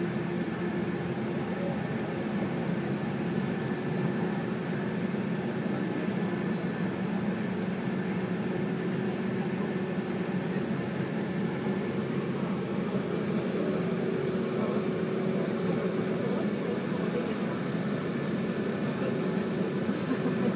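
Running noise inside a JR 185 series electric train moving at a steady speed: an even rumble of wheels on rail with a constant hum holding a few steady tones.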